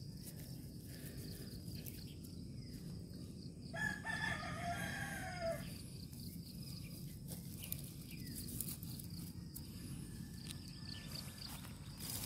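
A rooster crows once about four seconds in, a single arching call lasting nearly two seconds. Faint rustling and scattered clicks sound around it.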